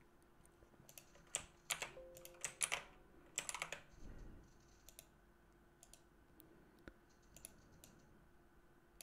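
Faint clicks of a computer keyboard and mouse: a quick cluster of clicks in the first four seconds, then scattered single clicks.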